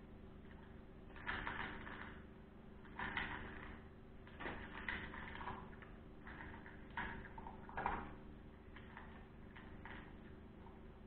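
Russian-European Laika puppy eating dry kibble from a metal bowl: irregular bursts of crunching, a second or two apart.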